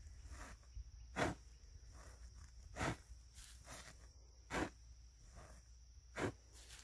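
Antique hay knife sawing down through a round hay bale and its strings: a rasping stroke about every second and a half, four strong ones, each with a fainter return stroke between.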